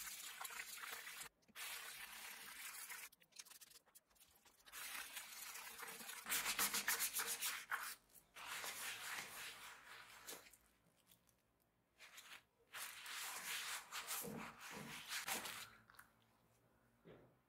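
A small hand brush scrubbing wet leather in quick back-and-forth strokes. It comes in bursts with short pauses and dies away near the end.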